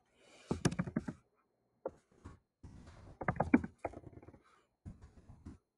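Typing on a computer keyboard: quick runs of key clicks with short pauses between them, about four runs in all.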